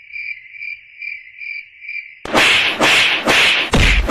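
Cricket chirping, a steady pulsing high chirp about three times a second. About two seconds in it cuts off and a rapid run of loud, sharp slap-like smacks begins, nearly three a second.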